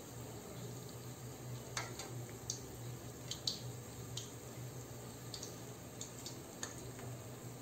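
Bechnikha dough frying in hot oil: a steady sizzle with scattered small pops and clicks, over a low steady hum.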